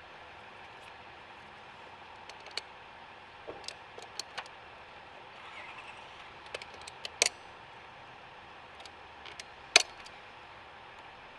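Scattered metal clicks and clinks of locking pliers working the terminal clamp of a new car battery, with two louder clacks in the second half.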